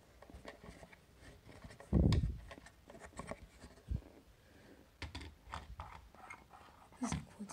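Handling noises of a quartz wall clock being turned and moved: rubbing and light clicks, a dull thump about two seconds in, and a couple of knocks near the end as it goes back against the wall.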